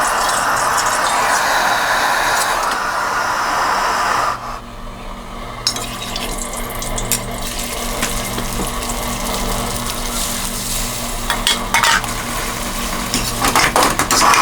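Cooking sounds from fried rice being made: a steady hiss for about the first four seconds, stopping suddenly, then scattered clinks of a metal utensil against cookware, with more of them near the end.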